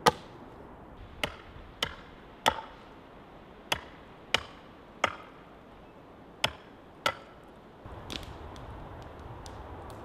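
Repeated sharp blows of a hand tool on wood, nine in loose pairs about half a second apart, stopping about seven seconds in; faint small ticks follow.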